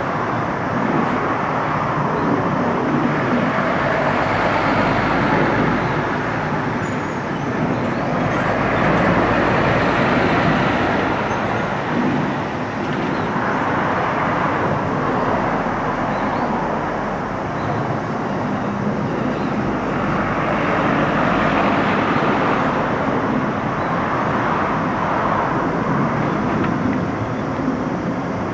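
Road traffic: cars and other vehicles passing one after another, a continuous wash of tyre and engine noise that swells and fades every few seconds.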